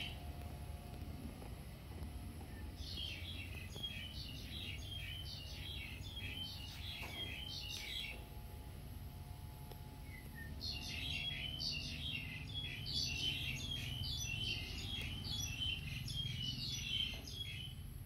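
A small songbird singing in two long runs of quick repeated chirping phrases, the second starting about halfway through, over a steady low background rumble.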